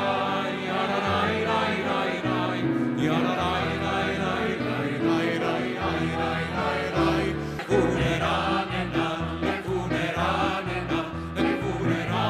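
Mixed choir of men's and women's voices singing together in harmony, with long held notes.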